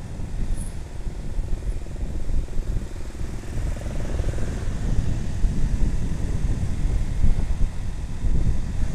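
Wind buffeting the microphone on a moving motorcycle, over engine and road noise. About four seconds in, another motorcycle's engine rises as it passes close alongside.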